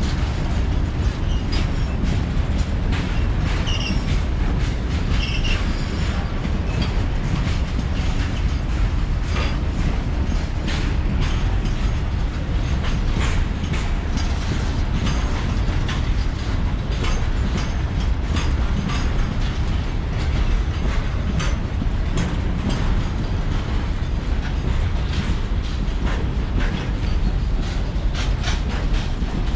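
Freight train of covered box wagons rolling past close by: a steady heavy rumble with wheels clattering over the rail joints in frequent sharp clicks.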